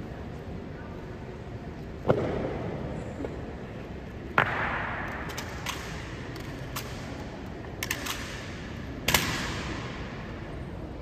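Honor guard drill on a stone floor: three loud, sharp strikes, about two, four and nine seconds in, each ringing out in a long echo, with lighter clicks and taps between them.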